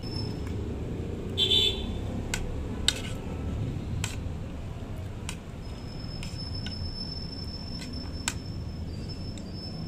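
Metal fork and spoon clicking against a ceramic plate several times while eating, over a steady low background hum. A short high beep-like sound comes about one and a half seconds in, and a thin high steady tone runs through the second half.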